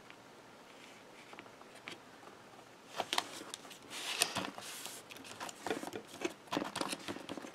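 Hands pressing and smoothing a layered paper card front onto its card base: scattered paper rustles and taps, starting about three seconds in.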